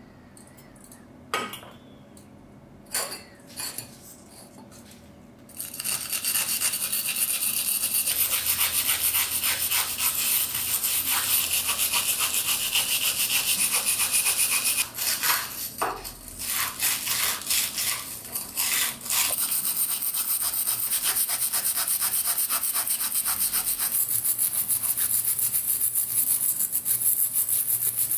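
A few light knocks, then a hand wire brush scrubbing rust off a perforated metal oil-lamp burner: a fast, steady scratching of stiff wire bristles on metal. It pauses for a few seconds about halfway through, with a few more knocks, then carries on.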